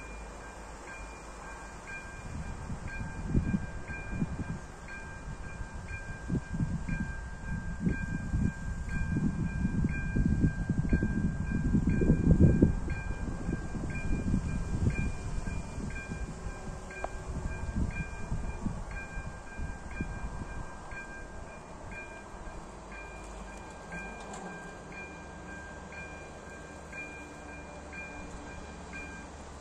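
Electronic warning bell of a railway level crossing ringing a steady, evenly repeating two-tone ding, warning that a train is approaching; it stops near the end. Underneath, a low rumble swells and fades, loudest about twelve seconds in.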